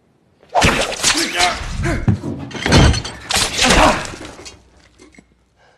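A scuffle with crashing and breaking: repeated thuds and things shattering, mixed with voices crying out. It starts suddenly about half a second in and dies away near the end.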